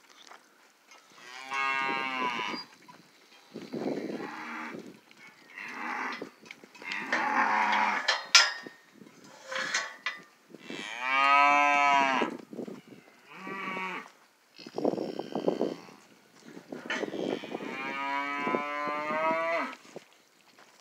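Charolais cattle in a pen mooing and bawling, about eight separate calls one after another, some low and some high-pitched. A single sharp click sounds about eight seconds in.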